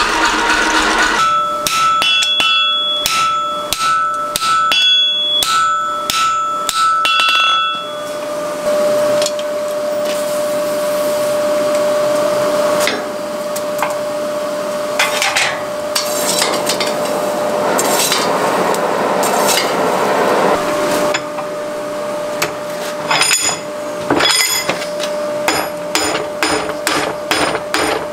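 Hand hammer striking a red-hot wrought iron bar on the anvil, about two to three blows a second with a ringing tone, for the first several seconds. Then a long steady rushing noise from the coal forge while the bar heats, and near the end quick hammer blows again as the bar's end is upset in a vise.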